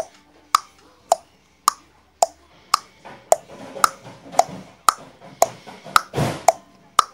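Background music: a steady beat of short percussive clicks, a little under two a second, alternating between a lower and a higher pitch. A brief rushing noise cuts across it about six seconds in.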